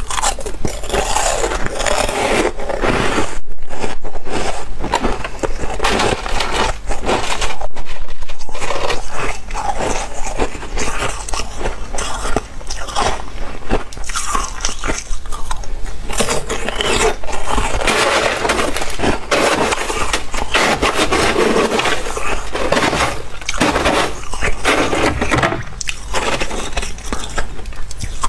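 Flaky freezer frost being bitten and chewed close to the microphone: a dense run of crisp crunching, the loudest bites a few seconds in and again about eight seconds in.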